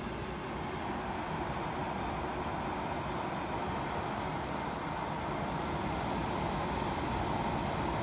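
A running dehumidifier with an Embraco compressor, giving a steady airy whoosh without any compressor hum. The compressor itself is extremely quiet.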